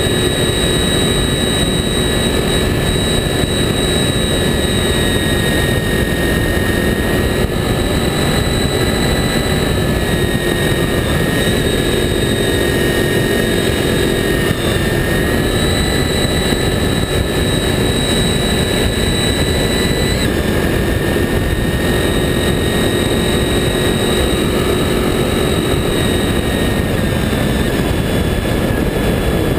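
Honda VFR800 motorcycle's V4 engine running at a steady road speed, mixed with heavy wind rush and road noise at a camera mounted low by the front wheel. The note holds mostly steady, shifting slightly about two-thirds of the way in.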